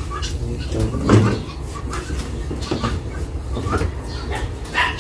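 Irregular knocks and clatter from the plastic cabinet of a twin-tub washing machine being lifted and shifted, over a steady low rumble.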